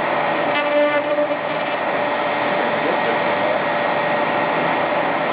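Joe's CNC 2006 router spindle running steadily as the machine carves, a constant whine over a rushing noise, with a brief change in pitch about a second in.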